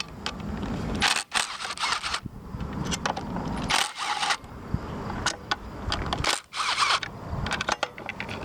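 Metal engine parts and hand tools clicking, clinking and scraping as a part is worked loose and pulled from the engine, with several short bursts of rattling scrapes.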